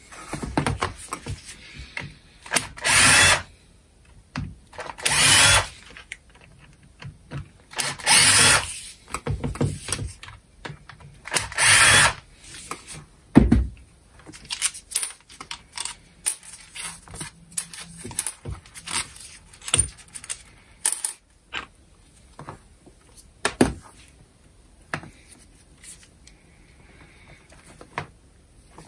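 A small power screwdriver or drill running in four short bursts, backing out the screws of an angle grinder's gear housing, with clicks and knocks of metal parts being handled between them.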